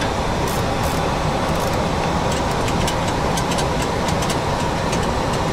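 Steady cockpit noise of a Boeing 737 in flight on approach: airflow and engine noise, with a few short, high ticks.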